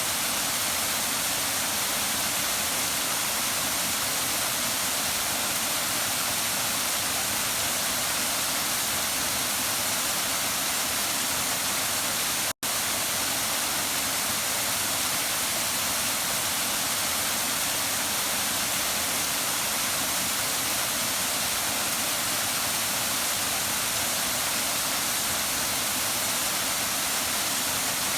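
Waterfall with a steady, even rush of falling water. About halfway through, the sound cuts out for a split second and comes straight back.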